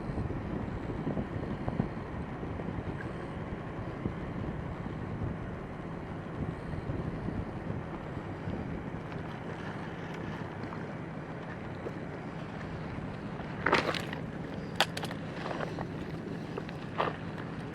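Steady low rumbling noise with a faint hum, then a few sharp clicks and knocks near the end.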